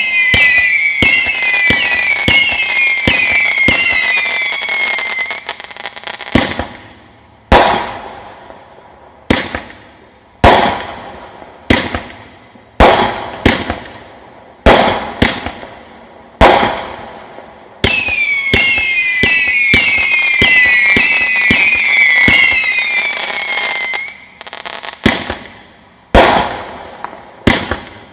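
Bright Star 'Agent of Boom' 500-gram firework cake firing. A volley of overlapping whistling shots, each falling in pitch, turns to crackle. Single sharp shots follow about a second apart, then a second whistle volley and more single shots near the end.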